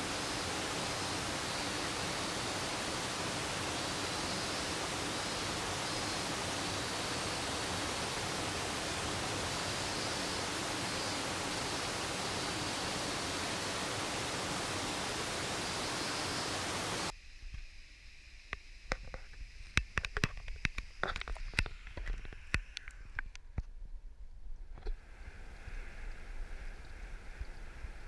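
Steady, even rush of a mountain stream's flowing water. About 17 seconds in it cuts off abruptly to a much quieter, muffled sound with scattered clicks and knocks, then a faint hiss.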